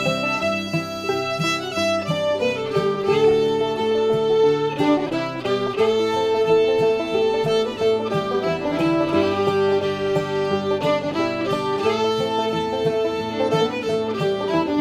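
Background music: a fiddle playing a melody over acoustic guitar, in a bluegrass style.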